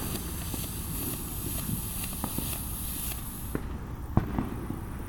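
Novelty racing-car ground firework hissing as it sprays sparks, with scattered crackling pops. The hiss cuts off suddenly about three and a half seconds in, and a sharper pop follows.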